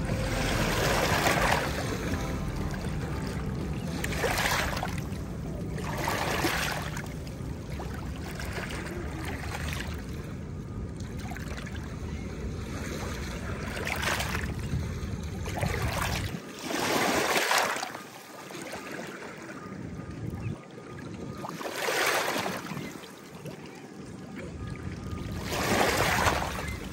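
Ocean surf breaking and washing up a beach: a steady wash of water with a surge of hiss swelling and fading every few seconds. A low rumble underneath drops away about two-thirds of the way through.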